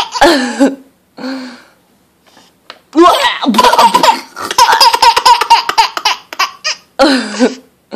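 Baby laughing in bursts: a few short laughs, then a long run of laughter from about three seconds in, and another burst near the end.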